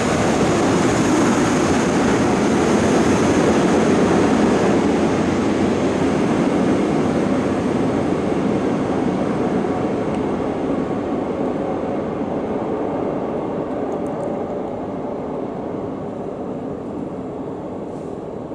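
An MTR Island Line train running through the underground station without stopping, behind the platform screen doors. Its steady rumbling running noise fades gradually from about a third of the way in as it pulls away into the tunnel.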